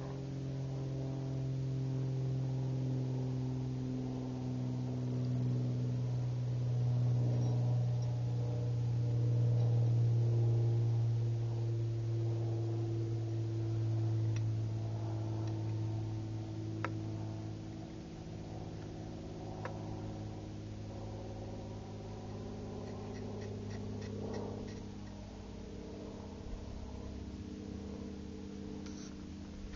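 Background music: slow, sustained synthesizer chords that change every few seconds, with a couple of faint clicks and no gunshot.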